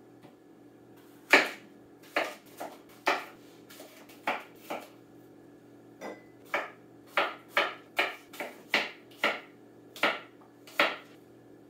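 A knife chopping an apple on a cutting board: a series of sharp chops, a little uneven at first, then a steadier run at about two a second.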